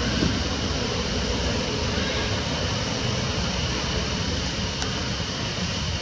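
A steady, even rushing noise with no distinct events.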